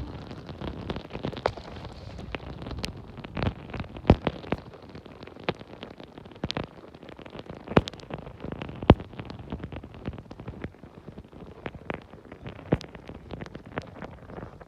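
Snowstorm wind with a steady hiss on the microphone, and icy snow ticking in many irregular sharp clicks, a few louder than the rest.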